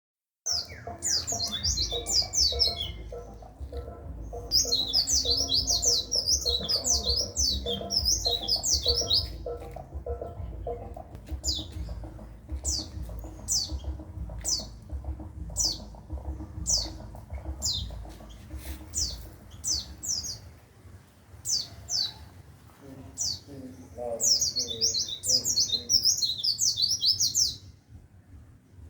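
White-eye (pleci) song: bursts of very fast, high twittering trills, with single sharp chirps in the stretch between them. A low hum sits beneath the first two-thirds and then fades.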